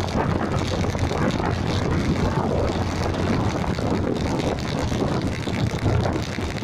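Steady wind buffeting on the microphone, with road and traffic noise, while riding along a busy street.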